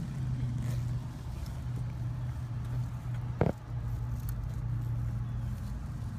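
A single sharp click a little past halfway, as a spark plug wire boot is pushed and snapped onto the plug, over a steady low hum.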